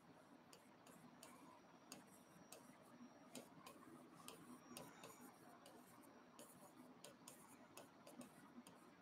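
Near silence broken by faint, irregular ticks of a stylus tapping on a touchscreen whiteboard as handwriting is written.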